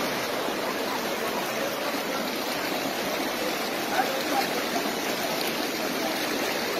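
Muddy floodwater rushing across the ground in a steady, even rush of water.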